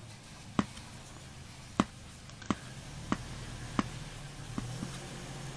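Short sharp plastic clicks and taps, about seven at irregular spacing, as a hot knife tip is pressed and worked against a plastic fender duct, over a faint steady low hum.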